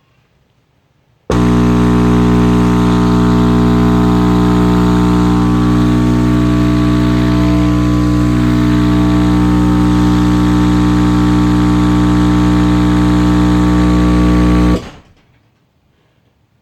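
A Crossfire XS V4 15-inch subwoofer driven straight from a wall socket on one voice coil, giving a very loud steady mains hum. It cuts off suddenly after about 13 seconds as the overloaded circuit trips the breaker.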